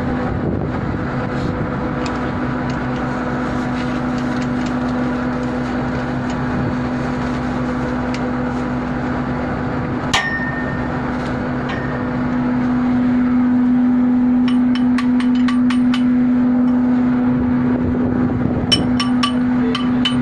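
Metal hand tools working on a screw compressor's cast casing over a steady machinery hum that grows louder a little past halfway: one sharp ringing clink about halfway, then runs of quick clicks from a ratchet wrench on the cover bolts near the end.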